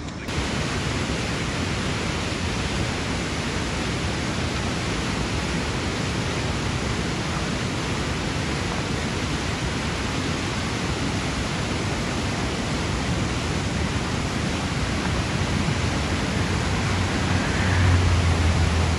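Whitewater rapids of a steep, rocky creek rushing over boulders: a steady, loud roar of water. A brief low rumble swells near the end.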